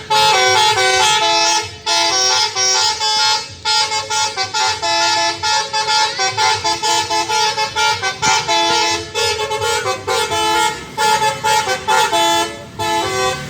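Three-trumpet telolet horn playing a fast tune of short pitched notes, often two or three sounding together, with a few brief breaks.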